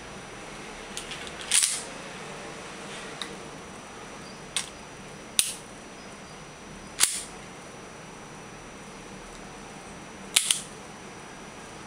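Airsoft pistol being reassembled: the slide and frame clicking and clacking as the parts are fitted and worked, a handful of sharp clicks spread out, with a double click near the end, over a steady hiss.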